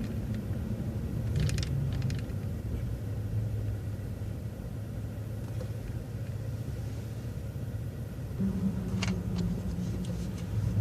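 City transit bus running, heard from inside the bus: a steady low engine and road rumble, with a few faint rattles and the engine hum rising slightly near the end.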